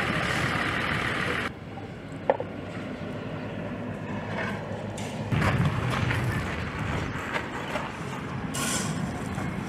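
Road construction site sounds: a steady machine noise that cuts off about a second and a half in, then a sharp knock and scattered scraping and knocking of stone slabs and shovels, with a low vehicle rumble from about halfway through.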